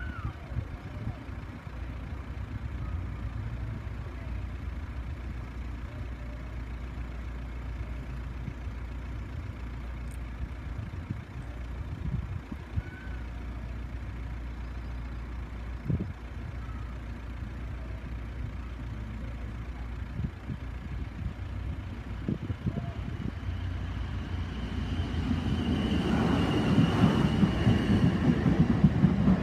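Low steady rumble of waiting road traffic, then an electric passenger train approaching and running over the level crossing, its rumble growing louder over the last few seconds with a steady high whine on top.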